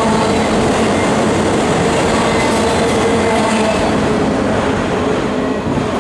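Freight train of autorack cars rolling past, a steady loud rumble and rattle of wheels on the rails that begins to fade in the last second.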